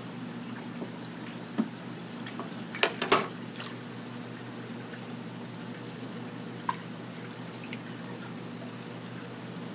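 Water splashing and trickling in a cichlid aquarium as the fish churn the surface while feeding, over a steady low hum. A few sharp splashing clicks stand out, the loudest a quick cluster about three seconds in.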